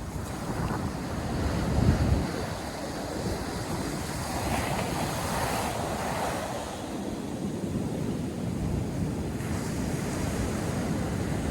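North Sea surf breaking and washing up a sandy beach, with wind buffeting the microphone in a strong gust about two seconds in. A wave's wash swells and fades in the middle.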